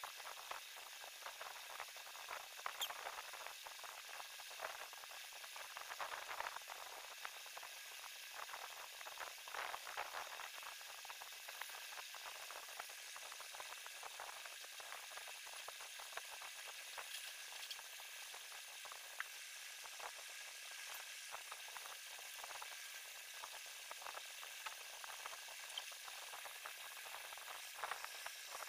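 Fine paintbrush dabbing fabric paint onto a cloth shawl: many light scratchy ticks over a faint steady hiss.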